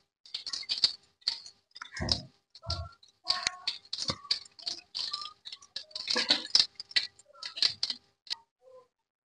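Metal spatula scraping and tapping against a wok while a bundle of stiff raw stick noodles is turned in a little hot oil: an irregular run of clattering scrapes and clicks, with a couple of duller knocks about two seconds in.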